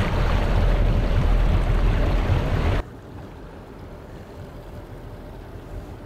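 A fishing boat underway at sea: steady engine rumble mixed with wind and rushing water. About three seconds in it cuts off suddenly, leaving a much quieter, steady background.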